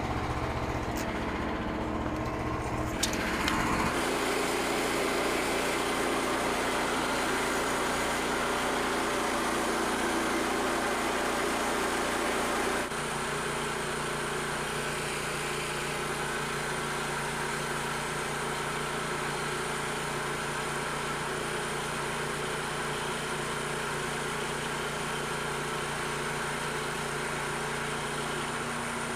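Small gasoline engine of a Frontier OS27 portable bandsaw mill running steadily, its note changing about four seconds in and again about thirteen seconds in. This is typical of the mill's engine working as the band blade is run through a white pine log.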